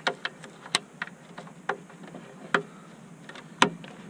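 Sharp, irregular clicks and taps, about nine in four seconds and loudest near the end, as bulb sockets are twisted and handled in the gauge cluster of a 1988 Chevrolet Suburban.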